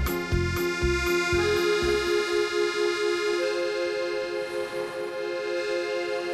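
Accordion music: a rhythmic bass line stops about two seconds in, leaving a long held chord that wavers evenly.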